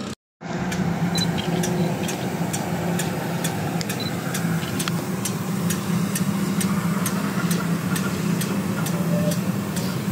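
Steady low hum of running shipboard machinery with a fast, even ticking, about three ticks a second, over it. The sound drops out briefly at the very start.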